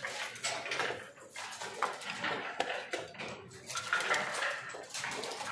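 Backgammon checkers and dice clicking and clattering against the board as pieces are moved and the dice are picked up and thrown, a string of short sharp clicks.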